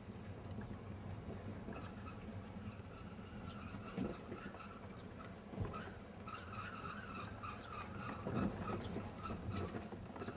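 Car driving slowly, heard from inside: steady low road and engine noise with a few thumps, and a run of short high squeaks in the second half.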